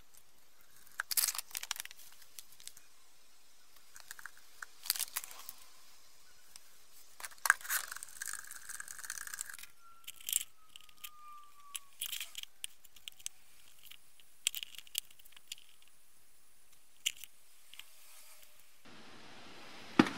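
Intermittent clinks, knocks and rustles of metal carbide-lamp parts being handled and set into a plastic bucket of citric acid solution for a rust-removal soak. A steady faint hiss comes in near the end.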